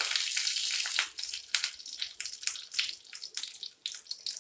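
Cumin seeds sizzling in hot coconut oil in a small kadai. A dense hiss in the first second gives way to irregular sharp crackles and pops as the seeds fry.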